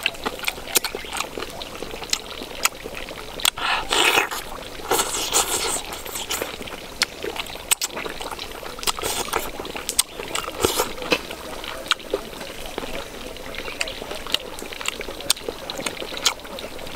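Close-up eating sounds: chewing and lip-smacking on roast chicken eaten by hand, with many sharp wet mouth clicks and a few louder, noisier stretches about four, five and ten seconds in.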